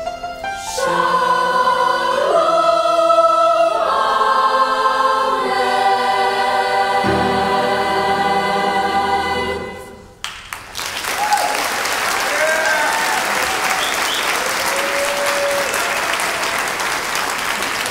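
Mixed choir singing its closing chords with piano accompaniment, ending about ten seconds in. The audience then applauds, with scattered whoops and cheers.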